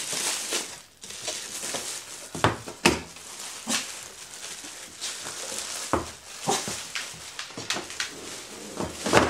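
Clear plastic wrapping crinkling and rustling as it is pulled off an electric pizza oven, with many sharp crackles.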